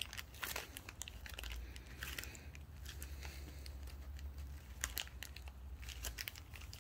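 Scattered small clicks and handling noise from a pair of hydraulic hose quick-disconnect couplers being worked by hand. They will not pull apart because the sleeve's notch is not lined up over the detent ball. A low steady hum runs underneath.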